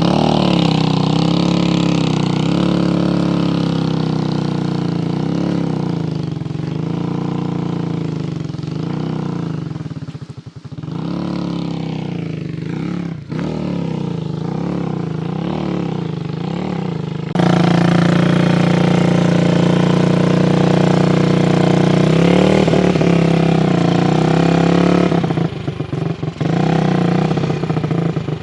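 Small motorcycle engine running, its pitch rising and falling over and over. It jumps louder and steadier about two-thirds of the way through, then turns choppy near the end.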